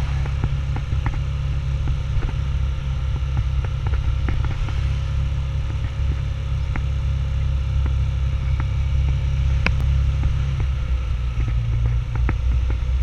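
Motor vehicle travelling along a road: a steady, loud low rumble with a faint steady hum and scattered small clicks and rattles.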